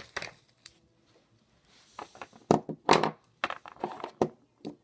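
Handling noise close to the microphone: about ten irregular knocks and scrapes in quick succession, starting about two seconds in, several of them loud.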